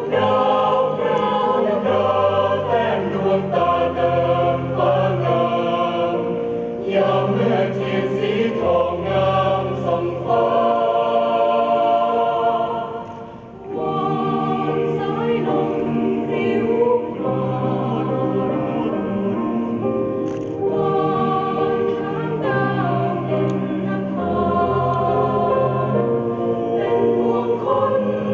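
A choir singing a slow song in long held notes over a low accompaniment, dipping briefly about halfway through.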